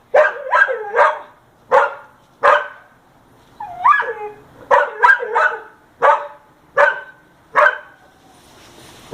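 A dog barking repeatedly in quick, sharp barks, about a dozen in all. Around four seconds in, one longer call wavers in pitch like a yelp.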